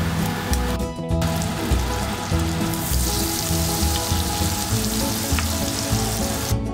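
Butter melting and sizzling in a hot pot; the sizzle grows louder about three seconds in. Background music plays along with it.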